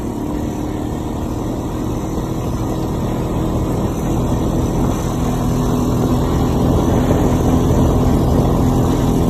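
ATV engine running steadily while riding along a snow-packed road, growing gradually louder as the ride goes on.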